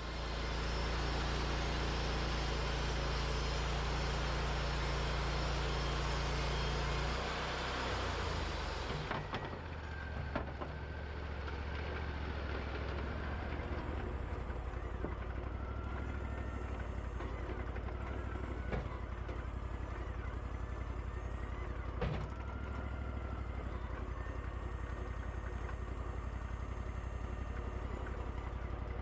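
Wood-Mizer LT40 band sawmill cutting through a red oak cant, a loud steady hiss of blade in wood over the engine's hum; about nine seconds in the blade exits the cut and the hiss stops, leaving the mill's engine running steadily, with a few sharp knocks as the sawn board is handled.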